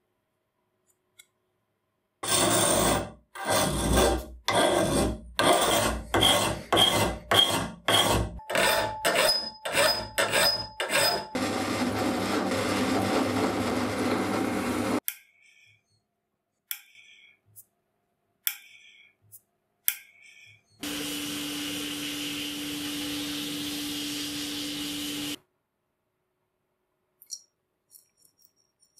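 Rasping strokes of metal being worked on the cast drill housing, about a dozen in a row. They are followed by a countersink bit spinning in the housing's bore and cutting it for several seconds, deburring it. Later comes a second steady run of a tool with a low hum, then a few faint clicks.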